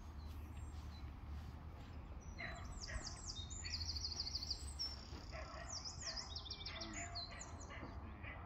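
Songbird song from the surrounding trees: several phrases of fast, high repeated notes and trills, starting about two seconds in and running until near the end, over a steady low rumble.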